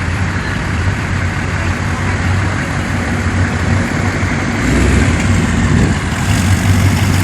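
A large engine idling with a steady low hum, growing a little louder about five seconds in.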